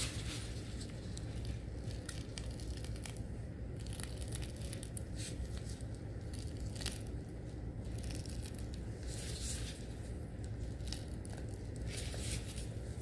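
Piping bag being squeezed and handled, giving irregular soft crackles as the filling is piped into egg halves, over a steady low hum.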